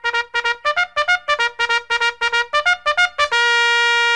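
Music: a quick run of short, clipped notes, then one long held note starting about three seconds in.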